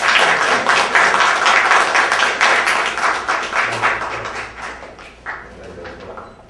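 A small audience applauding, clapping strongly at first and then dying away near the end.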